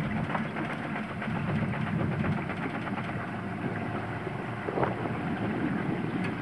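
A small boat's outboard motor running steadily, a low even hum, with the rush of water and air around the moving boat.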